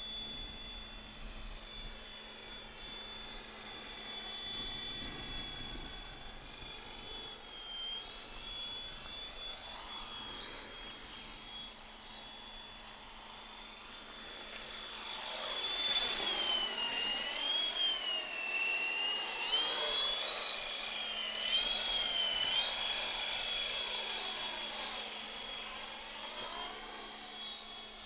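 Hunting Sky electric RC helicopter in flight: a steady high motor-and-rotor whine. About halfway through it grows louder and the pitch wavers up and down for several seconds as the throttle changes, then settles again near the end.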